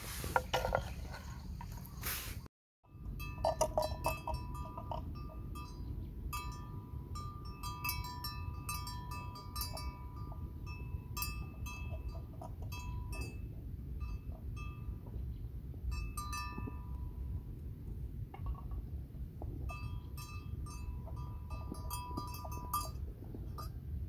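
Bells clinking and ringing irregularly, each strike ringing on briefly, as the grazing water buffalo move, over a steady low rumble. There is a short dead gap about two and a half seconds in.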